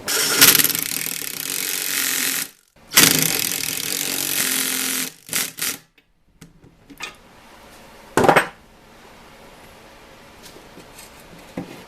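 Power ratchet running lock nuts down onto pedal shafts in two runs of about two seconds each, then a few short bursts and one more brief run about eight seconds in.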